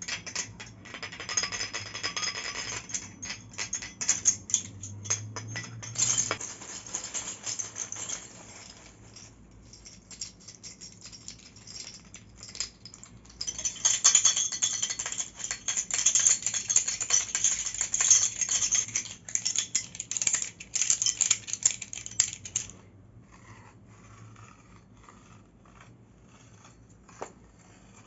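Foley props handled close to a microphone: a light bulb and small metal pieces rattled and clinked, then the metal tubes of an old microphone stand slid and scraped against each other, a dense run of clicks and grating for several seconds, thinning to sparse clicks near the end.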